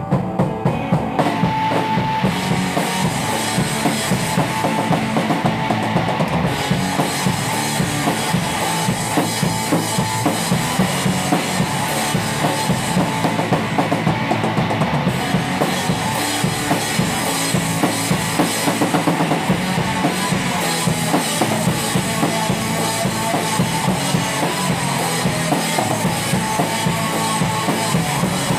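Rock band playing an instrumental passage without vocals, the drum kit's bass drum and snare keeping a steady beat under the band.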